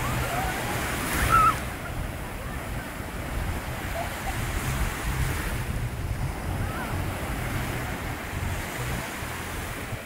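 Sea surf breaking and washing in continuously, with wind buffeting the microphone. About a second in, a person's voice cries out briefly and loudly, with a few fainter calls from bathers later.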